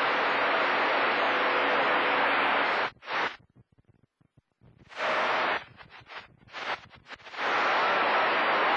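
CB radio receiver hiss between transmissions. About three seconds in the noise cuts out suddenly, comes back in a few short choppy bursts, and returns steady near the end.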